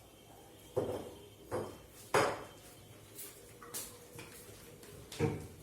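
Metal kitchen pots and utensils knocking together as they are handled: about five separate clanks, the loudest about two seconds in.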